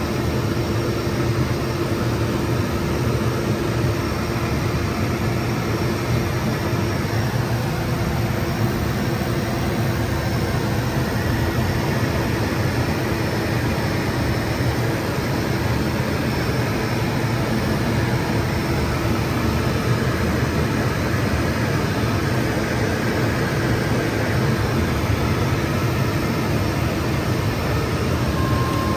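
Cockpit noise of a Morane-Saulnier MS.760 Paris in flight: the twin Turbomeca Marboré turbojets and the airflow make a steady rush with a low, even hum running through it.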